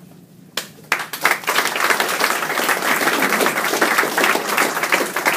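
Small audience applauding, starting about a second in.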